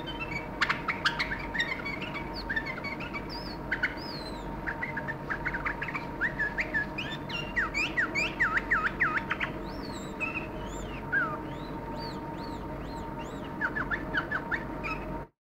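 White-eared bulbul chirping in short, quick, rising-and-falling notes, thickest around the middle, with a few sharp taps about a second in, over a steady background hum.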